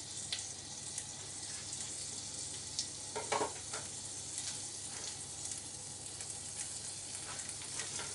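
Hot oil sizzling steadily in a roasting pan around a pork roast, with scattered small crackles and one brief louder sound a little over three seconds in.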